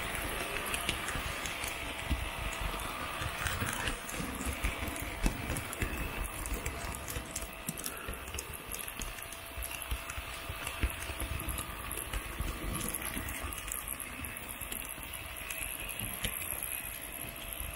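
H0 model train carrying the camera, running along the layout's track: a steady rumble and rattle of the small wheels over the rails and rail joints, with a faint steady motor whine.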